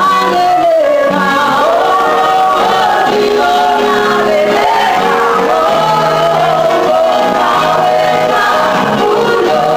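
Music: a choir singing, the melody moving over held lower notes.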